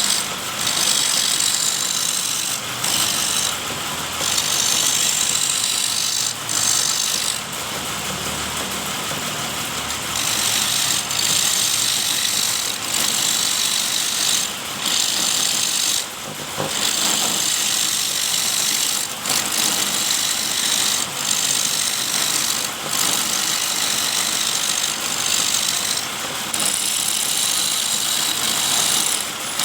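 Electric-motor wood lathe running, with a steady high hiss that drops out briefly every second or two.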